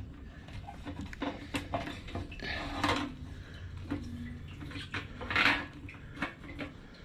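Old fuel pump assembly being worked loose and lifted out of a Harley-Davidson Tri Glide fuel tank: scattered clicks, knocks and short scrapes of plastic and metal parts, over a steady low hum.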